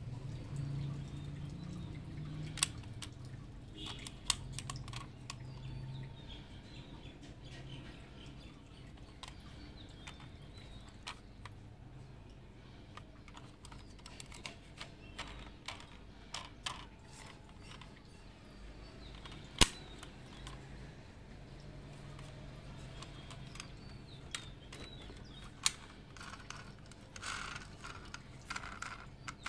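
Small scattered clicks and taps of diecast model vans being handled: metal bodies, doors and plastic parts knocking against fingers and each other, with one sharper click about two-thirds of the way through.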